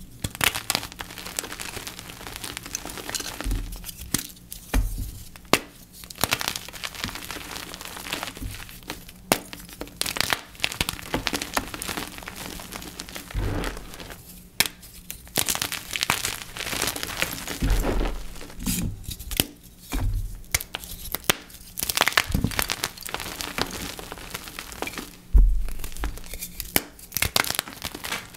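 Dip-dyed gym chalk blocks being crushed, with dense crunching and crumbling and a few dull, deep thumps along the way.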